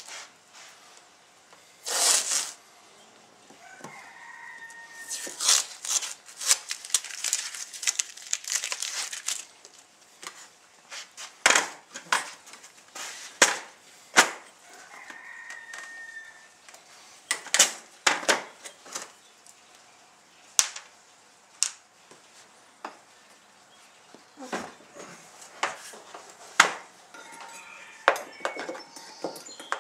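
Hands at work on a personal watercraft's hull: a tearing sound about two seconds in as masking tape is pulled off, then scattered clicks, taps and knocks of parts and tools being handled. A few short bird calls sound through it, about four seconds in, midway and near the end.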